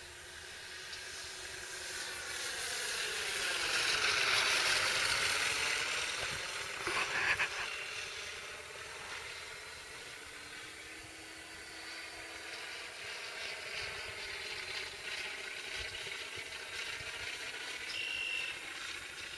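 Electric RC Cessna 182 in flight, its propeller and motor noise mixed with a sound module playing a simulated Lycoming piston-engine drone. It swells as the plane passes close about four to five seconds in, the engine pitch dipping and then climbing back, and fades a little after that.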